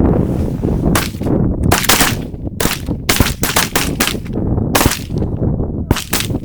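A volley of about a dozen shotgun blasts from several hunters firing at geese, coming in quick, overlapping bursts between about one and six seconds in. Heavy wind rumbles on the microphone underneath.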